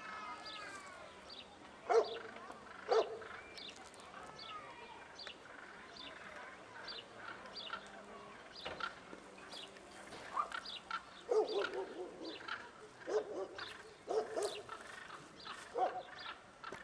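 A dog barking now and then, a couple of single barks early and a run of barks in the last several seconds, with small birds chirping throughout.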